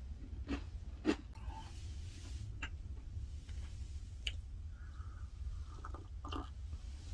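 A few light knocks and clicks of a glass coffee cup and other tabletop items being handled, scattered over a low steady hum.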